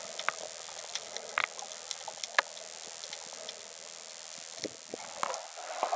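Muffled underwater ambience heard by a camera below the sea surface: a steady hiss with scattered faint clicks and crackles, and a thin high steady whine throughout.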